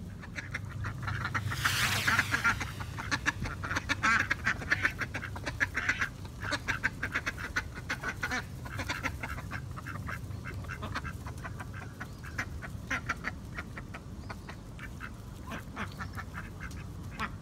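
A flock of khaki Campbell ducks quacking, many calls overlapping in the first half and sparser later. There is a brief rush of noise about two seconds in.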